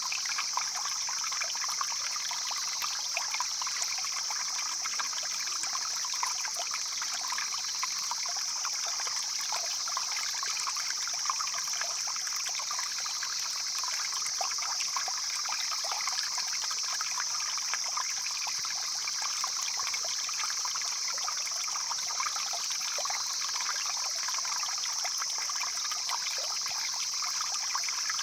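Mountain stream flowing steadily, a constant rush of water with fine trickling and splashing.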